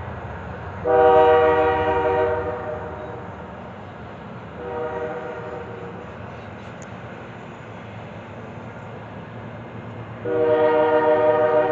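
Train locomotive air horn sounding a chord in blasts: a loud blast about a second in, a shorter, quieter one around five seconds, and another loud blast starting near the end, over a steady low rumble.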